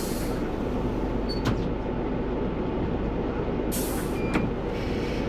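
Single-decker bus heard from the driver's cab, its diesel engine and running gear giving a steady low rumble. Two short hisses of air, one at the start and one about four seconds in, the kind an air brake gives, and a couple of light clicks.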